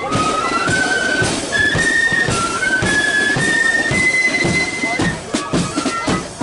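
Marching flute band playing a tune: a high flute melody stepping up and down in unison over regular drum beats.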